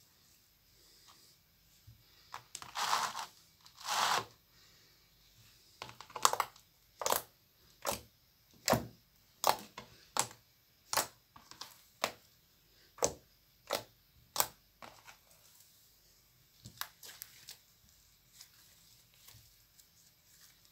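Purple fluffy slime being squished and poked with fingertips. Two longer squelches come first, then a regular run of short sharp pops about one a second as the fingers press into it, tailing off to a few faint ones near the end.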